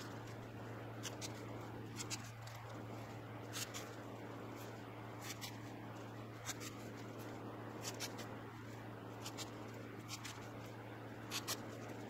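Faint handling sounds of cord being pulled and worked through a knot by hand: irregular short scratchy ticks and rubbing, over a steady low hum.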